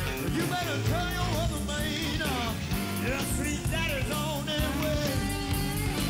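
Background music: a rock-style song with a singing voice over a steady beat.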